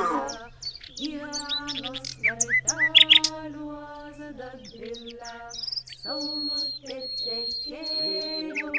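Birds chirping and tweeting in quick high calls, with a long steady high whistle near the end, over a tune of held notes.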